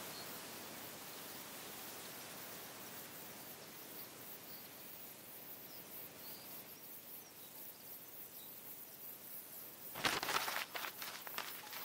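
Faint outdoor background noise, an even hiss. About ten seconds in comes a short run of sharp crackling clicks.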